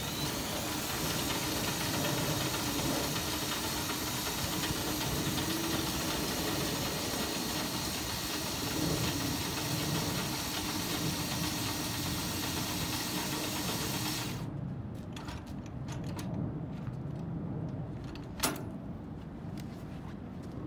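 Battery-powered UltraLift drive tool running steadily as it turns the crank to wind a semi-trailer's landing gear back up. It stops suddenly about three-quarters of the way through, and a single sharp click follows a few seconds later.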